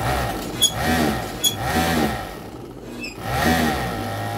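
Sewing machine running in three short bursts, its motor speeding up and slowing down each time, with a few sharp clicks between the bursts.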